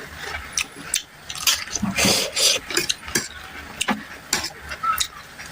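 Close-up eating sounds: a quick run of sharp clicks of utensils against a dish, mixed with the wet mouth sounds of eating.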